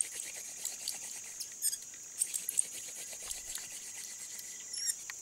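Scattered light clicks and rustles over a steady high-pitched hiss.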